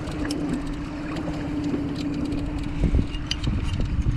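Boat motor running with a steady hum, under wind buffeting the microphone; scattered small clicks and a knock a little under three seconds in.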